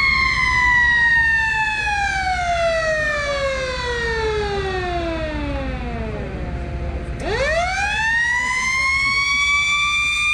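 A mechanical siren wailing, winding slowly down in pitch for about seven seconds, then spinning quickly back up and holding a steady high wail.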